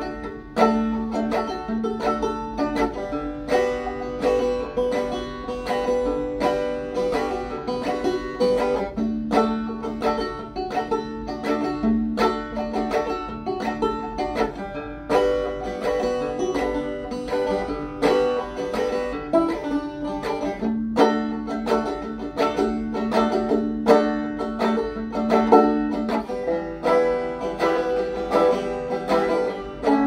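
Solo resonator banjo picked through a tune: a quick, unbroken run of plucked notes.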